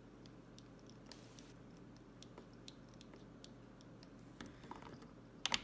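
Faint, scattered light clicks and ticks from hand work at a fly-tying vise, as thread from a bobbin ties a feather eye onto the fly, with a louder double click near the end.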